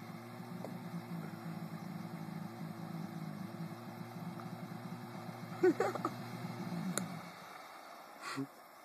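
Diesel jet ski engine running out on the water, a steady low drone that dies away about seven seconds in.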